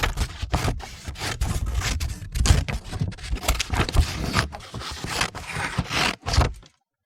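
Scissors cutting paper: a quick succession of snips and rasping strokes through the sheet, stopping abruptly near the end.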